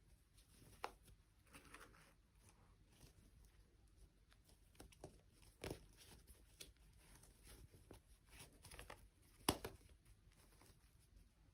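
Faint handling sounds from small objects being worked by hand: scattered light taps and rustles with a few sharp clicks, the loudest near the end.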